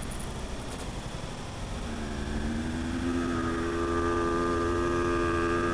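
A passing motor vehicle's engine, a steady hum that comes in about two seconds in and grows louder, its pitch starting to drop right at the end as it goes by.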